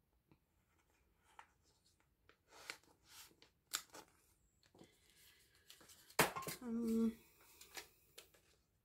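Plastic card sleeves and binder pages crinkling and rustling in irregular bursts as photocards are handled, with a sharp click about six seconds in followed by a brief hummed "mm".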